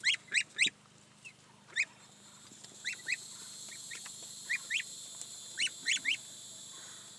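Geese calling: about a dozen short, sharp, high honks, coming in twos and threes.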